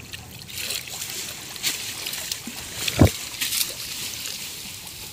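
Water splashing and sloshing as men wade through shallow muddy creek water and haul a large hand-held prawn net, water streaming off the mesh as it is lifted. A single sharp thump about three seconds in is the loudest sound.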